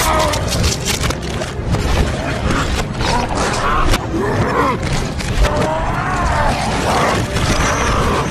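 Film fight soundtrack played backwards: a dense jumble of impacts and clicks, with growls that glide up and down in pitch.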